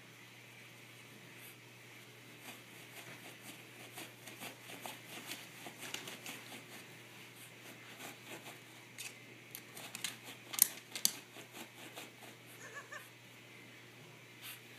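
A small dog pawing at the carpet and nosing under a low shelf for hidden treats: an irregular run of scratching, scuffing and clicking, loudest about ten seconds in.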